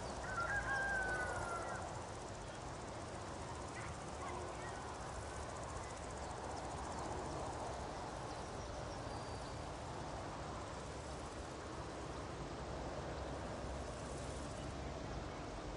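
Meadow nature ambience: a steady soft outdoor hiss, with one short drawn-out animal call just after the start and a few faint high bird chirps later on.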